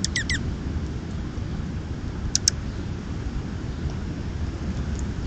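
Steady low rumble of distant road traffic, with a quick run of short, falling high chirps from small birds at the start and two sharp ticks a little before halfway.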